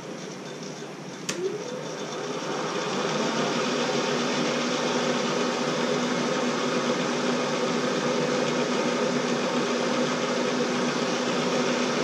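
Bridgeport milling machine's spindle switched on with a click about a second in, winding up to speed, then running steadily with a large fly cutter spinning on low speed: a steady mechanical hum with a steady whine. On low speed the heavy cutter runs without shaking the machine badly, judged "not bad on low speed".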